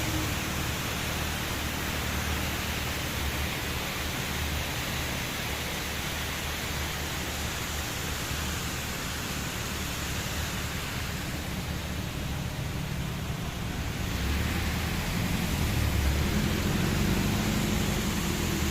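Waterfall rushing: a steady, even noise of falling water, with a deeper rumble and slightly louder from about fourteen seconds in.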